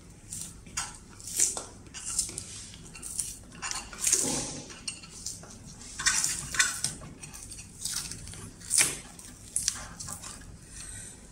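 Front foot mat being prised up and peeled off the plastic deck of a Kugoo Kirin Mini 2 electric scooter by hand: irregular short scrapes and clicks as fingers work under the mat's edge and the adhesive lets go.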